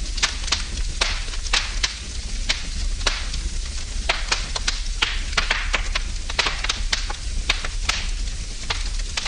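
Wood fire crackling in a fireplace: irregular sharp pops and snaps, several a second, over a steady hiss of burning and a low rumble.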